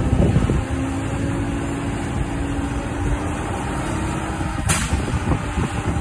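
Recycling truck's engine running with a steady low rumble and a humming tone, as the truck moves off slowly on wet, snowy pavement. A brief hiss comes about three-quarters of the way through.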